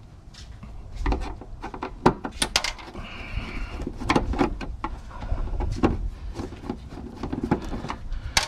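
Irregular clanks, clicks and knocks of hand tools and metal parts being handled while a salvaged motor assembly is taken apart for scrap.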